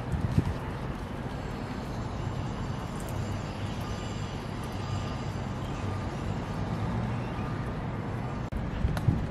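Steady low outdoor background rumble, with one brief knock about half a second in.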